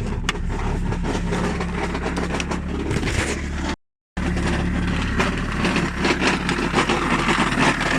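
Lada Granta engine idling with a dreadful, constant knocking and rattling from the flywheel, whose bolts have worked loose so that the flywheel is beating itself apart. The sound cuts out for a moment about four seconds in.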